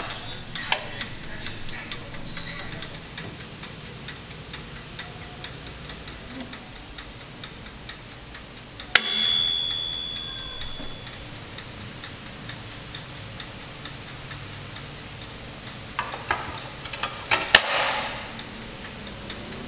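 Steady clockwork ticking. About nine seconds in comes a single bright ding that rings on for about a second, and a few knocks follow near the end.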